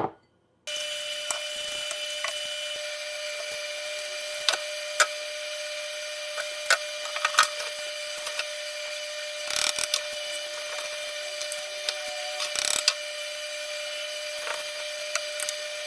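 Light clicks and taps of small pieces being handled and set in place during miniature building, over a steady hum with a faint fixed high tone. The taps come singly and in a few short clusters.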